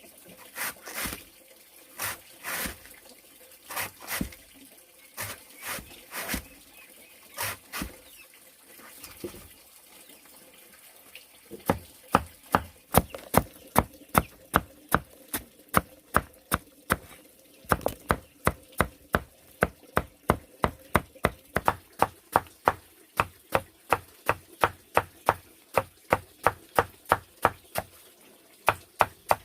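Knife chopping on a wooden board, which fits food being cut up for pig feed. The strokes are slow and uneven at first, then from about twelve seconds in settle into a quick steady rhythm of about two to three strokes a second.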